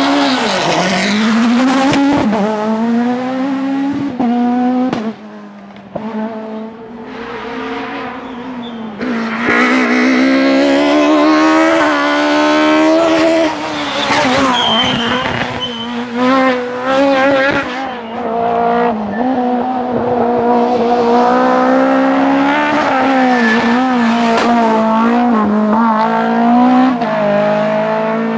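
Kit Car rally cars' naturally aspirated four-cylinder engines revving hard, their pitch climbing and dropping again and again through gear changes and lifts off the throttle.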